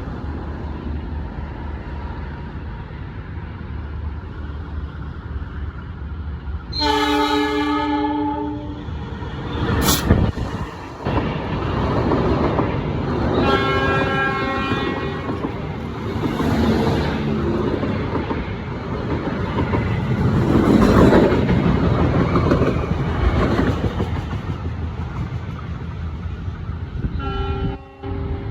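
A diesel-hauled passenger train sounds its horn as it approaches, about seven seconds in and again around fourteen seconds and near the end. A sharp crack comes about ten seconds in, then a long rush of wind and the wheel clatter of the carriages passing close at speed.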